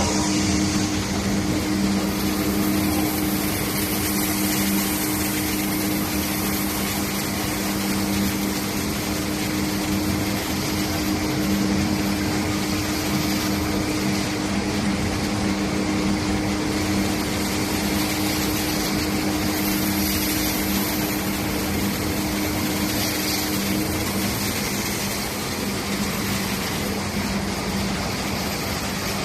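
Steel wire drawing machine running steadily: a continuous machine hum over a wash of mechanical noise, with a higher hum that drops out near the end.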